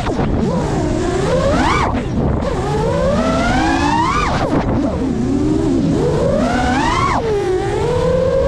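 GEPRC Mark5 FPV freestyle quadcopter's brushless motors whining, the pitch climbing with throttle and then dropping sharply on throttle chops about 2, 4.5 and 7 seconds in. Steady low rumble of wind and prop wash underneath.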